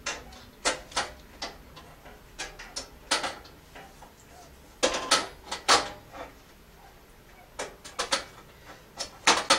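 Metal grates and parts of a Camp Chef camp stove clinking and knocking as they are handled and set into the stove's case, in irregular clusters of sharp clicks.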